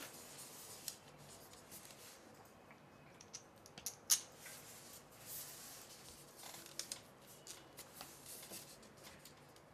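Light clicks and rubbing of gimbal frame plates, a tube clamp and a small screw being handled and fitted together by hand, with a sharp click about four seconds in.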